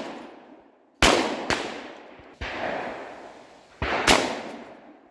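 Shotgun fire: two loud reports about three seconds apart, with a quieter shot between them, each one trailing off in a long echo.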